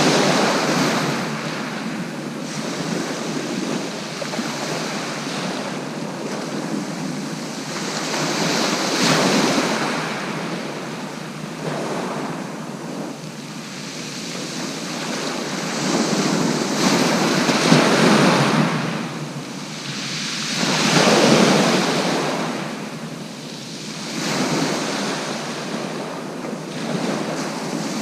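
Sea waves breaking on the shore, the noise swelling and dying away every few seconds. Wind is buffeting the microphone.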